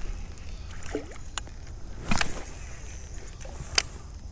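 Handling noise on a kayak on flowing water: a few sharp knocks and a louder thump about two seconds in, over a steady low rumble.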